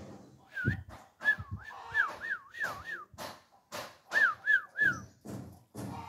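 Caged Alexandrine parakeets calling: short harsh squawks, and between them a warbling whistle that sweeps up and down about four times a second, in two runs.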